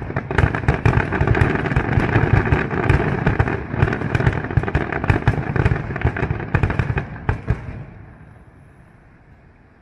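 Closing barrage of an aerial fireworks display: a dense, rapid run of bangs and crackles over a low rumble that dies away about eight seconds in, leaving only a faint background hum.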